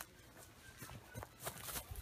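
Faint, irregular footsteps on ground covered with dry pine straw.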